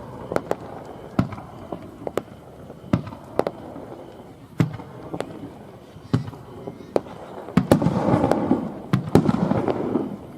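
Aerial fireworks bursting in a rapid, irregular series of sharp bangs. The sound grows louder and busier, with dense crackling, from about three-quarters of the way in.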